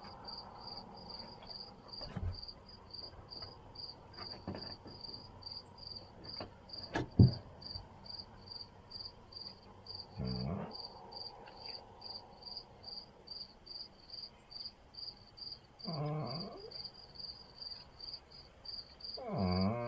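Bullmastiff whining for attention, three short whines in the second half, the last the longest. Crickets chirp steadily underneath, about two chirps a second, and a single sharp knock sounds about seven seconds in.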